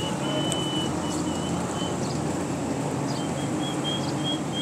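Steady street background noise with a low traffic hum, and a faint high-pitched tone coming and going in short stretches.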